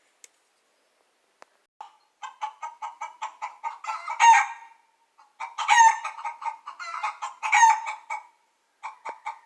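A chicken clucking in runs of quick, evenly spaced clucks, each building into a louder drawn-out call, three times. It starts about two seconds in.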